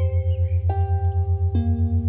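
Relaxation music: soft, ringing bell-like notes, a new one about every second, over a loud low hum that pulses about seven times a second.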